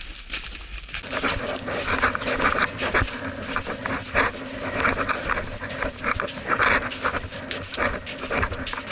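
Footsteps crunching through snow in an irregular walking pattern, with panting breaths.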